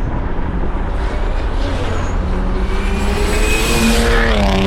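Turbocharged car accelerating hard, its turbo whistle rising over the engine, a jet-like sound. The pitch falls near the end.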